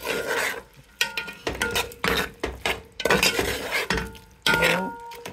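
A spoon stirring prawns and vegetables in a nonstick pot: a run of scrapes and clinks against the pot, several leaving a brief metallic ring.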